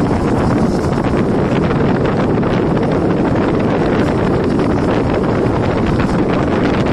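Wind rushing steadily over the microphone at the window of a moving train, over the train's running rumble.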